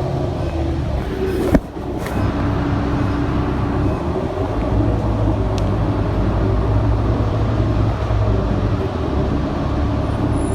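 City bus engine running with a steady low hum, with a single sharp knock about a second and a half in.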